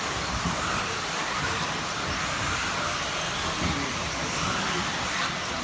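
Electric 1/10-scale four-wheel-drive RC off-road buggies racing around a dirt track: a steady wash of motor and tyre noise from several cars.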